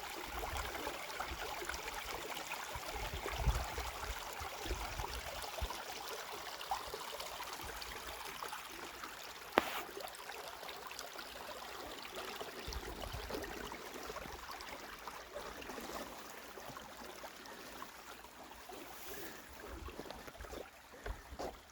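Running water trickling steadily, with one sharp click about halfway through.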